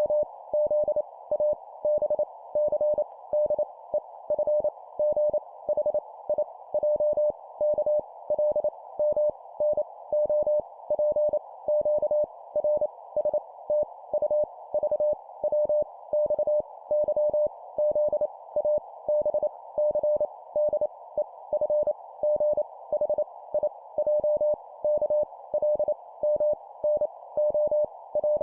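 Morse code (CW) tone keyed at 25 words per minute, sending letters as rapid dots and dashes on a single steady pitch, over a constant background hiss.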